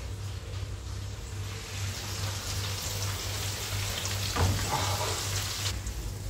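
Hot fat and juices sizzling in the roasting pan of a stuffed capon fresh from the oven for basting, a steady hiss that cuts off suddenly near the end. A single knock about four and a half seconds in.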